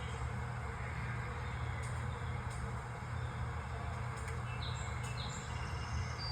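Small birds chirping in a Cat TV bird video playing through a television's speaker, with a few short high chirps about four to five seconds in, over a steady hum.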